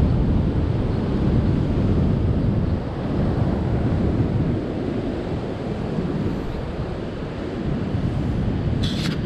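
Wind buffeting the microphone over the steady low rush of heavy surf breaking on the beach, with a short rustle near the end.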